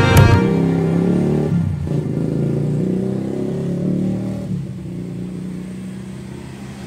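Background music: the drum strokes stop at the start, leaving low held notes that change pitch a few times and slowly fade.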